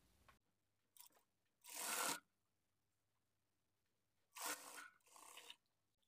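Cloth being handled: three short rustles of fabric, the loudest about two seconds in and another about four and a half seconds in, with a fainter one just after it.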